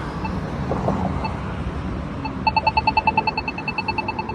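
Polara iNS2 accessible pedestrian signal push button ticking. It gives slow locator ticks about once a second, then about two seconds in switches to a rapid beeping tick of roughly ten a second, the walk indication on this button.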